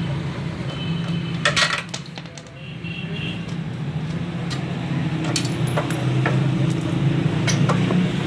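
Scattered metallic clinks and taps over a steady low hum.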